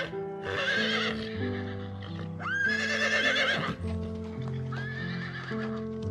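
Horse whinnying: two loud, quavering neighs and a fainter third call near the end, over background music with held notes.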